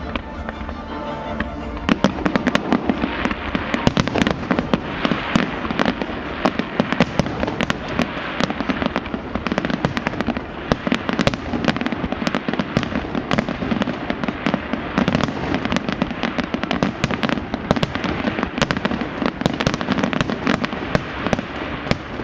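Fireworks salute going off in a dense, rapid string of bangs and crackles, many per second, with music playing underneath.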